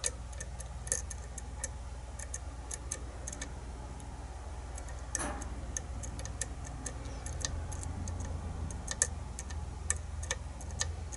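Light, irregular metallic ticks and clicks of a lock pick working the pin stack inside a kick-cylinder challenge lock, as pins are probed and set.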